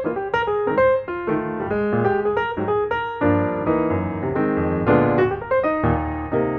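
Instrumental background music led by piano, with a run of quickly struck notes.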